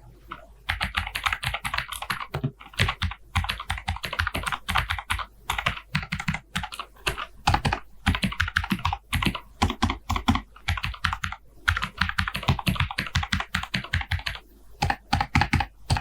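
Tecware Phantom TKL mechanical keyboard with clicky Otemu blue switches being typed on fast: a dense stream of sharp key clicks that starts about half a second in, with a short pause near the end.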